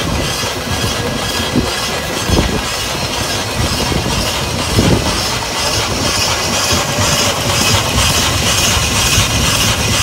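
Steam engines running: a steady mechanical clatter with hissing steam and a few louder knocks in the first half. The hiss grows brighter from about halfway.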